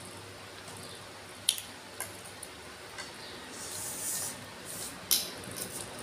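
Eating and food-handling sounds: wet squishing as rice noodles are pressed into papaya salad by hand, with a few sharp clicks and clinks from plate and spoon. A crackly rustle comes about four seconds in, and the loudest click comes near the end.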